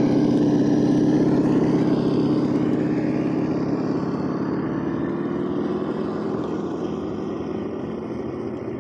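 RC crawler truck's onboard engine sound unit playing a steady simulated engine note as the truck drives, fading steadily as it moves away.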